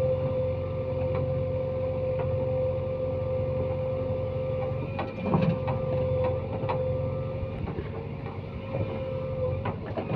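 Heavy diesel earth-moving machinery running steadily with a high, even whine over the engine, and a cluster of knocks and clatter about five seconds in and again near the end.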